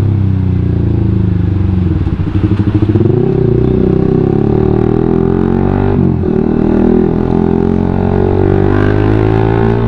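Suzuki GSX-R150's single-cylinder engine through a WRX GP5K1 aftermarket full-system exhaust, ridden on the road. The note drops and goes choppy as the bike slows, then climbs under acceleration, dropping briefly at a gear change about six seconds in before rising again.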